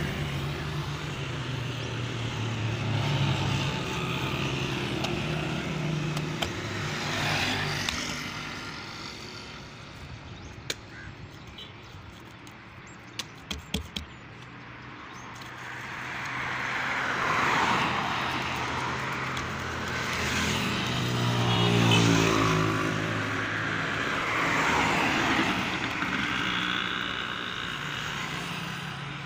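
Motor vehicles passing, their engine noise swelling and fading several times over a steady low engine drone, with a few sharp taps near the middle.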